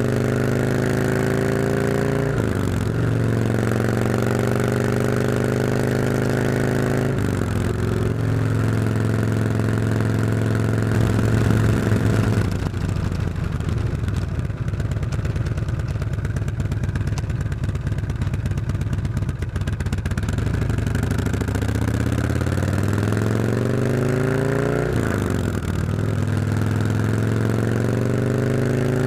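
2012 Harley-Davidson Road King V-twin running through stock mufflers fed by stainless 2-1-2 head pipes, heard close to the exhaust. The engine holds steady speeds, dips briefly at several shifts, drops to a rougher, lower burble for several seconds near the middle, then climbs in pitch twice toward the end.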